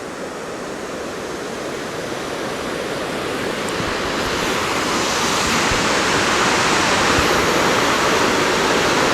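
Waterfall rushing: a steady roar of falling water that grows gradually louder.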